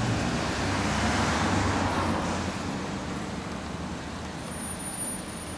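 Large motorcycle engine pulling away and fading into the distance, with street traffic noise underneath.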